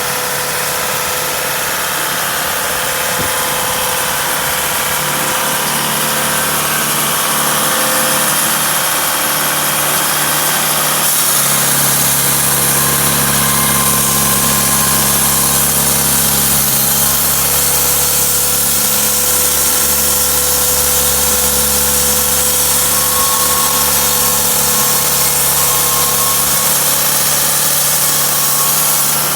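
Cummins B3.3 four-cylinder diesel engine running steadily on a homemade sawmill. About eleven seconds in, its sound becomes slightly louder and deeper and then holds there.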